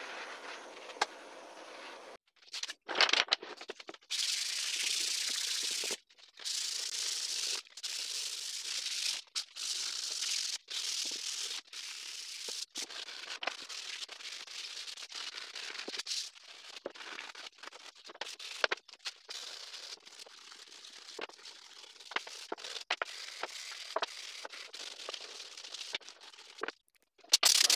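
A butane torch hisses briefly at the start. Then comes a run of short, choppy stretches of sandpaper being rubbed by hand over scorched wood, a dry scratchy rasp that starts and stops abruptly several times.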